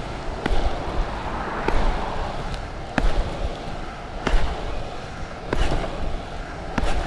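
Longboard wheels rolling on rough tarmac as the rider pushes, with a sharp slap about every second and a quarter as his foot strikes the ground.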